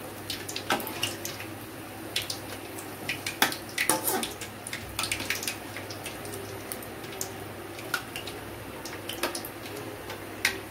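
Banana appams deep-frying in hot sunflower oil in an aluminium kadai: a steady sizzle with frequent sharp pops and crackles, and a few clicks of a metal slotted spoon against the pan as they are turned.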